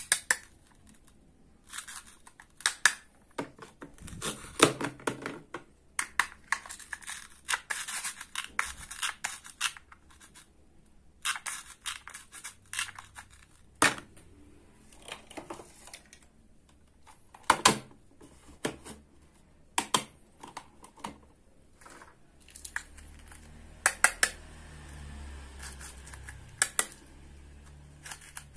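A wooden toy knife cuts through hook-and-loop-joined plastic play fruit and vegetables, and the halves are torn apart in short raspy rips. Sharp clicks and knocks come as the plastic pieces and knife tap together and are set down, with a longer stretch of ripping about six to nine seconds in.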